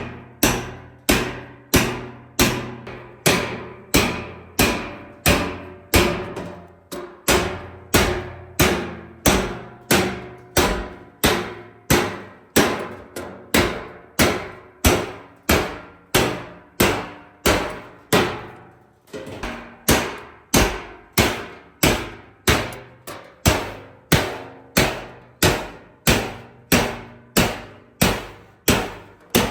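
Steel sheet from oil drums being hammered in a steady rhythm, about three blows every two seconds, each blow ringing out as it fades. There is a short break a little past the middle.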